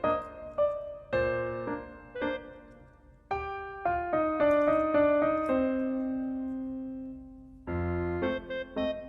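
Background piano music: a gentle melody of separate notes with a long held note midway.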